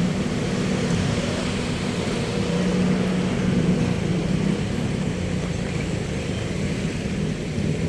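Street traffic: a motor vehicle's engine running steadily close by, over road noise.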